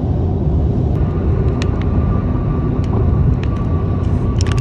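Road noise inside a car's cabin while cruising on a highway: a steady low rumble of tyres and engine, with a few faint clicks.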